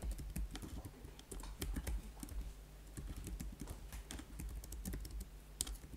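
Typing on a computer keyboard: an irregular run of quick key clicks as a line of code is entered, over a low steady hum.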